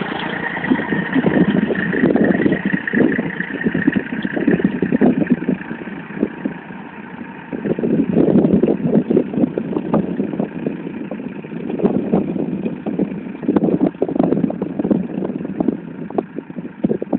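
Massey Ferguson 145 tractor's engine running as it pulls a plough through the soil, growing fainter as it moves off, under irregular loud bursts of noise.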